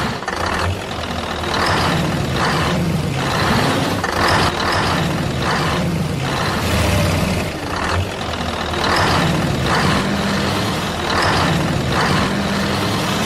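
A truck engine running, with a hiss that repeats about every second and a half.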